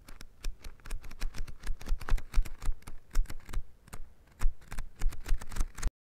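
Book pages being flipped one after another, each page giving a crisp paper flick or slap in a rapid, irregular run. The flicking stops abruptly just before the end.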